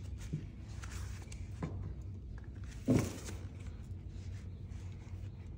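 Quiet room tone with a steady low hum and a few faint, brief clicks; the loudest comes about three seconds in.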